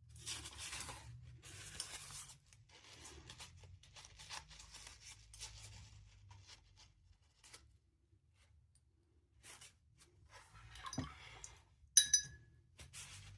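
Watercolour brush working on paper and in the paint pans: dry, scratchy strokes in several short stretches. One sharp, ringing clink comes near the end.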